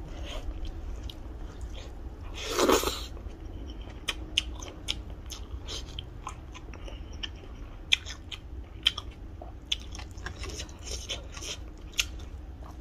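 Close-miked eating sounds: a person chewing and biting food, with scattered short sharp clicks and one louder, longer noisy mouth sound about two and a half seconds in.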